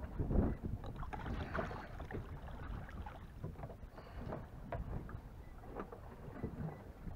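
Wind buffeting the microphone, with water lapping and splashing in short, uneven strokes.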